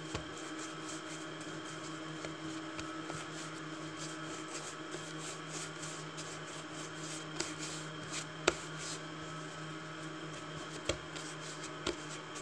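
Hands rolling bread dough into a log on a floured countertop: soft rubbing and light slaps of palms on dough and counter, with a few sharp taps, the loudest a little past the middle. A steady low hum runs underneath.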